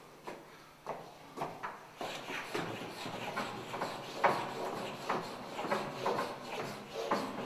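Vigorous hand strokes rubbing and scraping against a chalkboard, an irregular run of several strokes a second, with a sharper, louder stroke about four seconds in.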